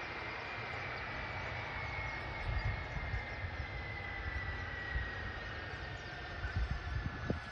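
Boeing C-17 Globemaster III's four Pratt & Whitney F117 turbofan engines running, with a steady rushing noise and a high whine that slowly falls in pitch.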